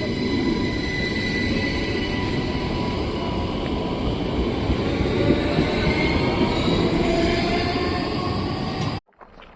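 Train running on the rails: a steady rumble with several high whining tones that drift slightly in pitch. It cuts off suddenly near the end.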